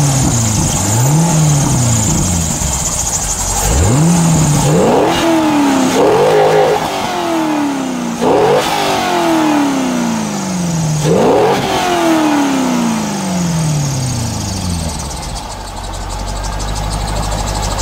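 C5 Corvette V8 on its stock exhaust, revved in about six blips. Each rises quickly and falls away slowly, and the later ones climb higher. It then settles back to a steady idle near the end.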